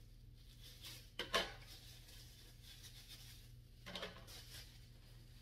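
Plastic bubble-wrap packaging rustling and crinkling as small turbine parts are unwrapped by hand, with a sharp click a little over a second in and a softer one near four seconds.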